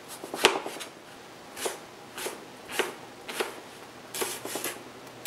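Chef's knife slicing through Japanese eggplant and red bell pepper on a plastic cutting board. The cuts come singly about every half second, each a short sharp stroke, with a quick run of several cuts a little past the middle.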